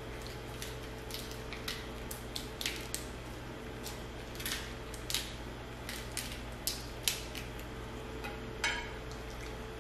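King crab leg shells cracking and snapping as they are broken open, with small clicks of shell and utensils at the table, in a string of short irregular cracks.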